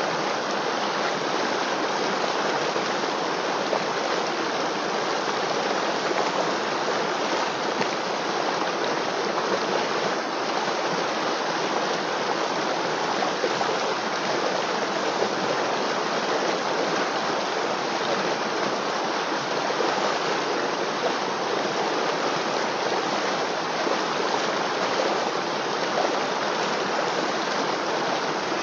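River water flowing steadily, an even hiss of running water without pauses.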